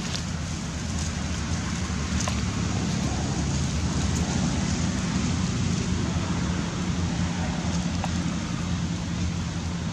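Steady outdoor background noise: a low rumble with an even hiss over it and a few faint clicks, with no calls from the monkeys.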